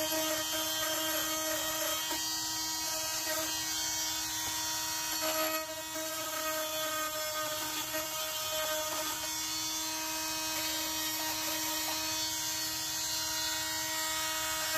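Small cordless handheld rotary tool running at a steady high speed with a high whine, its bit grinding away at the edge of a plastic console trim panel. The tone wavers and dips briefly about six seconds in.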